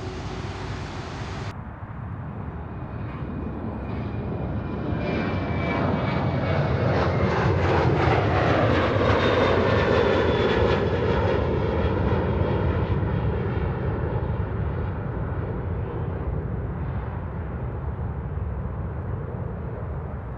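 Boeing 737 jet airliner climbing out after takeoff, its twin turbofan engines at takeoff power. The roar builds to its loudest about eight to ten seconds in as the plane passes, then slowly fades, with a fan whine falling in pitch.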